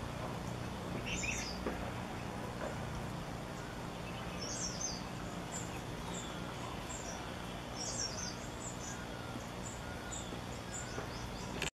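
Thin, very high-pitched contact calls of black-throated tits: short notes in small clusters every second or two, over steady low background noise.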